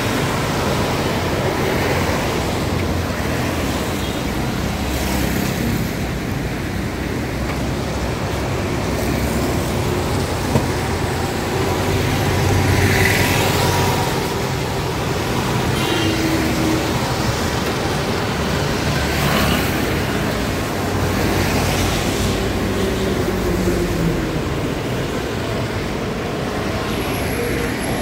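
Road traffic on a wet street: cars and small goods vehicles driving past one after another, with tyre noise off the wet surface. One pass about halfway through is louder, and later an engine's pitch falls away as it passes.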